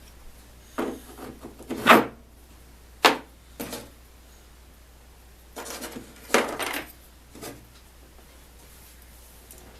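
Handling noises on a workbench: a few separate knocks and scrapes of parts and tools being picked up and set down, the sharpest about two seconds in and another about three seconds in, with a cluster of rubbing clatters around six to seven seconds.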